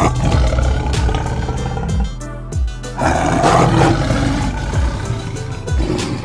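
Tiger roar sound effect, heard twice (at the start and again about three seconds in), over background music with low drum thumps.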